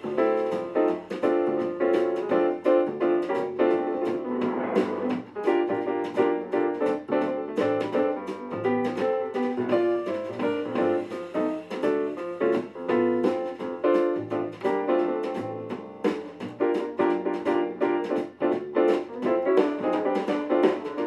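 Background music: an upbeat piano-led instrumental with a steady beat.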